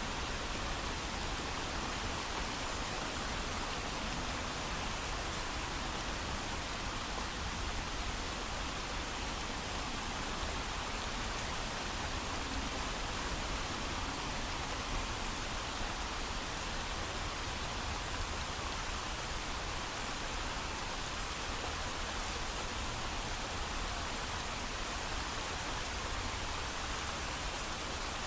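Steady, heavy rain falling, with no thunder.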